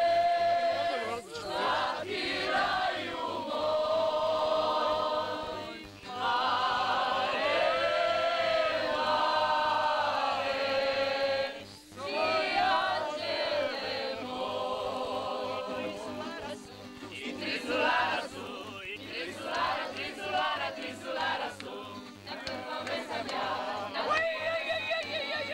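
A group of people singing together without instruments, in long held phrases with short breaks between them.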